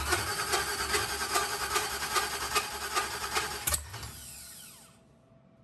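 Starter motor cranking a 4.8-litre LS V8 for about four seconds without it firing, a rough rhythmic grinding; when the key is released the starter spins down with a falling whine. The engine not catching points to fuel not yet primed into the system.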